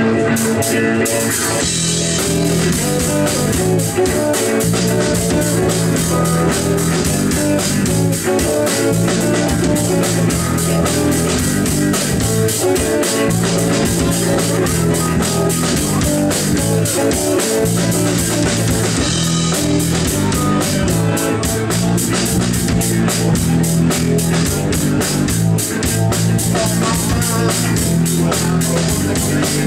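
Live rock band playing loud: electric and acoustic guitars strumming over a drum kit, with the cymbals coming in busier about two-thirds of the way through.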